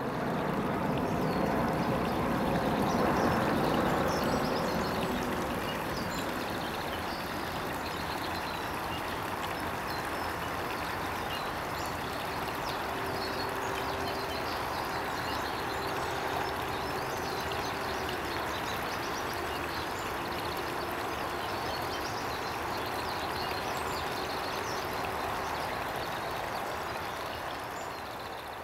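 Steady rushing of running water, like a stream, with faint high chirps scattered through it.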